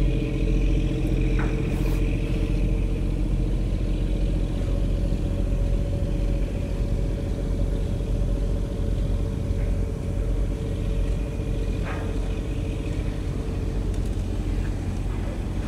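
Boat engine running steadily: a constant low drone with a steady hum over it.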